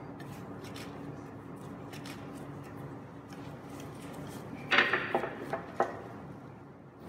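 Wooden rolling pin working a block of dough on a granite worktop, then a short clatter of several sharp knocks about five seconds in as the pin is put down on the stone.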